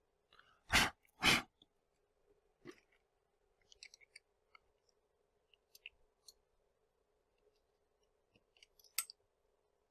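A metal workpiece being handled and set into a fixture plate on a mini mill's table: two short, loud clatters about a second in, then scattered light clicks and taps of metal on metal, with a sharper click near the end. A faint steady hum runs underneath.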